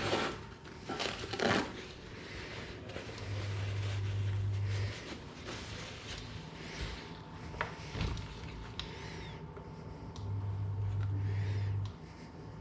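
Kitchen handling noises: a few knocks and clatters, and twice a steady low electric hum lasting about a second and a half.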